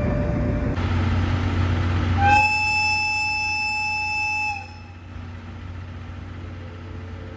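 Train horn sounding one steady note for about two seconds, starting a couple of seconds in over a low hum. Quieter train noise follows, with a faint rising whine near the end.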